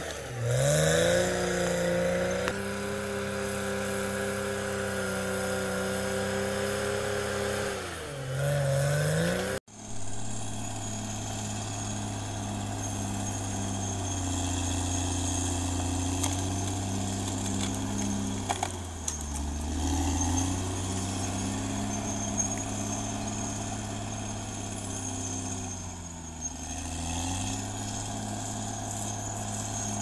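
Caterpillar D6R XL bulldozer's diesel engine working, its pitch sagging and recovering as it takes load. About ten seconds in, the sound cuts abruptly to the engine running more steadily and lower, sagging twice more.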